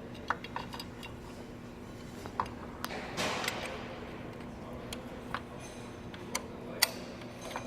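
Steel heel bar prying a unit injector up out of its bore in a CAT 3406E diesel's cylinder head: scattered sharp metal ticks and taps, with a short scrape about three seconds in, as the injector is worked loose.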